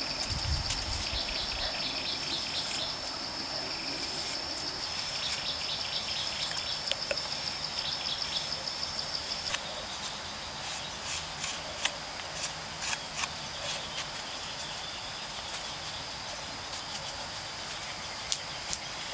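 Insects trilling steadily in a high, continuous whine. A second, lower trill stops about halfway through. Scattered light clicks and scrapes sound over it.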